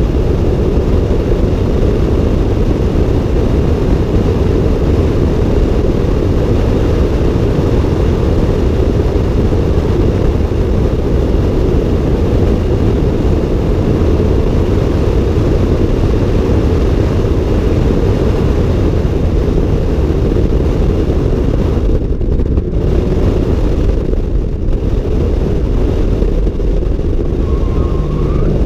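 Car driving along a road, heard through a camera mounted on its outside: a steady, loud low rumble of wind on the microphone and road noise, with no clear engine note. The rumble briefly thins out twice near the end.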